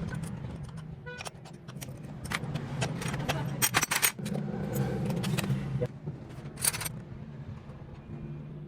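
Metal tools and engine parts clinking and scraping in a string of short, sharp clicks as a motorcycle engine is being taken apart, over a steady low hum.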